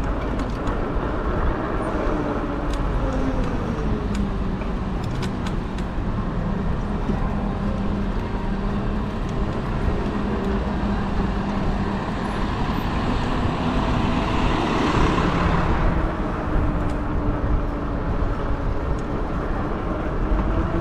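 Riding noise from a moving fat-tire e-bike: wind rumble on the microphone and a steady hum that slides down in pitch a few seconds in. About three-quarters of the way through, a louder rush of road traffic swells and fades.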